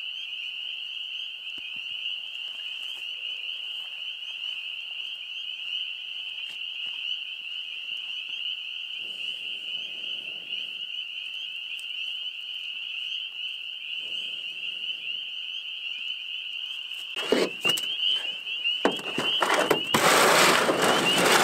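Chorus of spring peepers, a steady high-pitched peeping of many frogs at once. Near the end, loud rustling and knocks close by drown it out.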